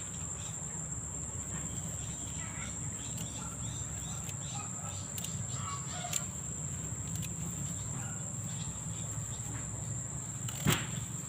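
Steady high-pitched drone of insects such as crickets in garden vegetation, with a few faint short calls now and then. A single sharp click comes near the end.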